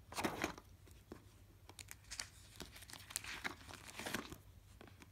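Plastic page protectors and clear transparency sheets crinkling as pages are turned in a ring-bound album, in several short rustles.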